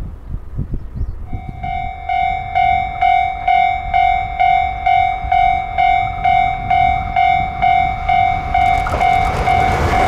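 Japanese railway level-crossing alarm ringing: an electronic bell tone repeating evenly about twice a second, starting about a second in. Near the end the rising rush of an approaching express train joins it.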